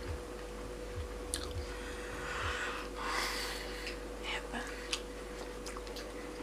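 Faint eating sounds: biting and chewing KFC fried chicken wings, with a few small clicks and a soft crunchy swell about three seconds in, over a steady faint hum.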